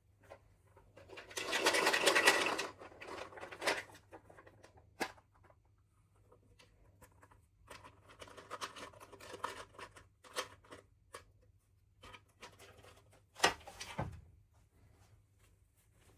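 Packaging being handled during an unboxing: crinkly rustling with scattered sharp clicks and taps. A loud rustle comes about two seconds in and another stretch near the middle.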